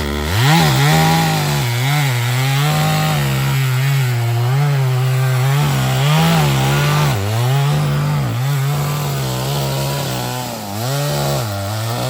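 Chainsaw running at full throttle, cutting through a large pine trunk during felling. Its engine pitch dips and recovers again and again as the chain bites into the wood, sagging deepest near the end.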